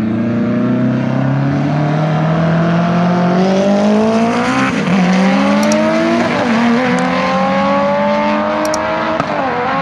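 Cars accelerating hard in a roll race, led by a turbocharged BMW 135i. The engine note climbs and drops back at each gear change, three times. The onlooker thinks the 135i's run went wrong, perhaps a missed gear, with a trap speed of only 105 mph.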